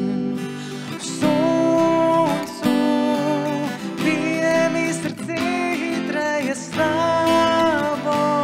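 Male voice singing long, wavering held notes into a microphone, accompanied by a strummed steel-string acoustic guitar.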